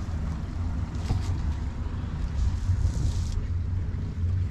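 Outboard motor of a Bayliner DX2000 deck boat running at low speed: a steady low rumble, with a brief hiss a little over two seconds in.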